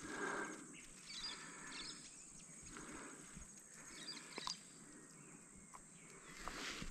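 Faint handling and rustling noise as a hooked trahira and a frog lure are worked by hand, with a few short bird chirps.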